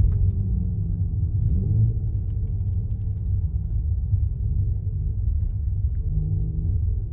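Mercedes-AMG GT53's turbocharged inline-six running while driving, heard from inside the cabin as a steady low rumble. Its pitch rises and falls a few times as the revs change.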